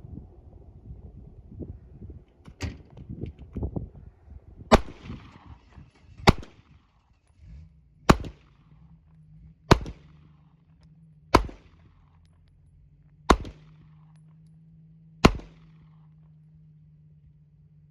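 Seven single shots from a Glock 43 9mm pistol, fired slowly about every one and a half to two seconds, after a few handling clicks.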